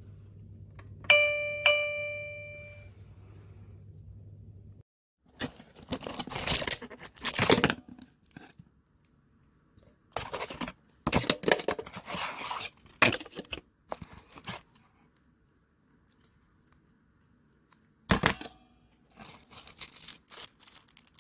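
A wireless doorbell chime receiver plays a two-note ding-dong about a second in, each note ringing and fading. A low hum under it stops a few seconds later, and then come irregular bursts of handling noise.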